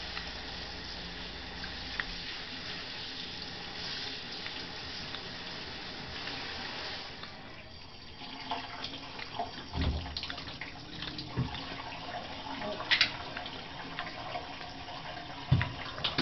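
Bathtub faucet running into a shallow tub, a steady hiss that stops about seven seconds in. After that, scattered knocks and small splashes in the wet tub, a few of them sharp and loud.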